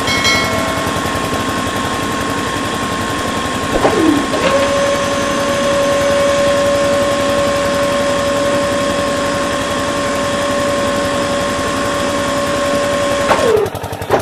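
Small DC motors of a DIY model borewell drilling rig whirring steadily. A second, higher whine comes in about four seconds in and winds down with a falling pitch near the end.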